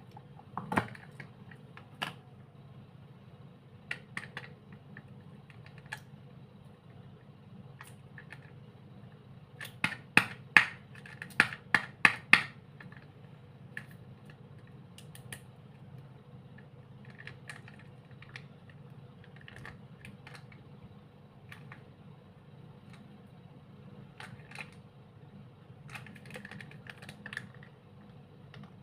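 Irregular sharp taps and clicks of hands handling slime packaging, with a quick run of loud taps about ten to twelve seconds in, over a faint steady low hum.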